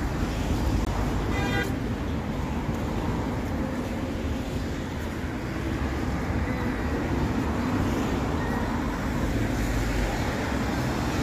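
Steady road traffic noise: a low rumble of cars passing. About a second and a half in, a brief pitched tone sounds over it.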